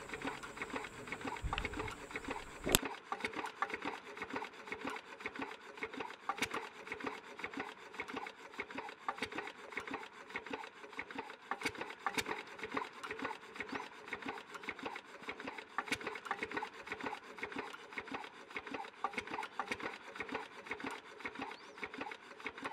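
Stationary water-cooled engine driving a belt-and-pulley well winch, running with a fast, even rasping rhythm.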